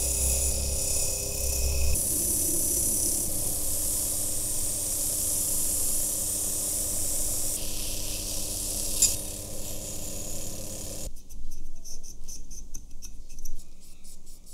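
Pen-style rotary tool running, its buffing wheel rubbing against the metal film rails of a camera body, a steady motor whine with rubbing hiss. About eleven seconds in the motor stops and quick, scratchy rubbing follows as a cotton swab wipes inside the body.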